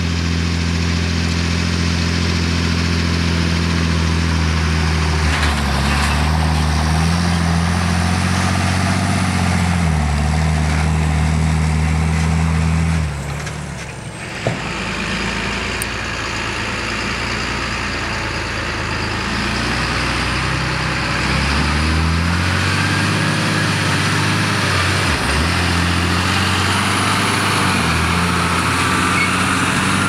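John Deere 8100 tractor's six-cylinder diesel engine running under load while hauling a full trailer of sugar beets, its pitch shifting up and down. About 13 seconds in the engine sound drops away and is quieter for several seconds, then comes back up to full level as the tractor passes close.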